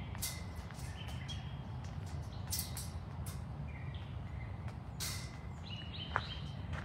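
Birds calling outdoors with short, flat whistled notes, repeated several times, over a steady low rumble. A few brief crunching bursts of footsteps stand out.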